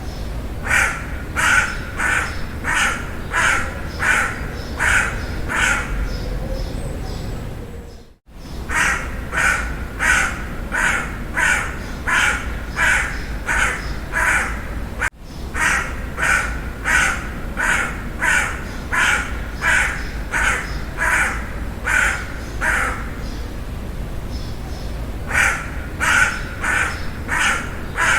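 Crow cawing in long runs of harsh caws, about two a second, broken by short pauses. The sound cuts out completely for a moment about eight seconds in.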